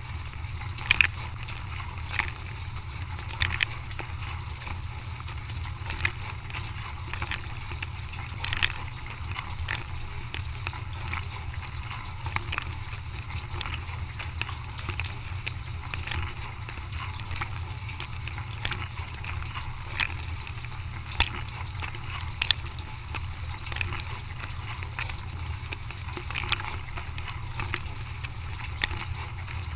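Dishwasher running a wash cycle: a steady low hum under the splash of water spraying inside the tub, with irregular sharp spatters.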